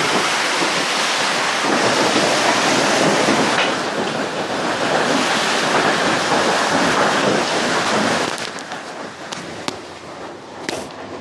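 Heavy storm rain and wind, a dense steady rush that drops away about eight seconds in, leaving a few scattered sharp ticks.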